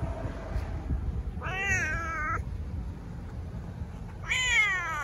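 Black-and-white domestic cat meowing twice. The first meow, about a second long, rises then falls in pitch. The second, near the end, starts high and falls.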